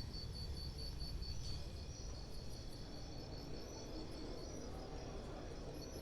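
An insect chirping in a high-pitched, fast, even pulse, over a low background rumble.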